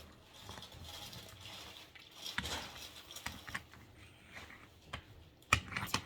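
Hands moving a doll about: scattered light taps, clicks and rustles, with one sharper knock about five and a half seconds in.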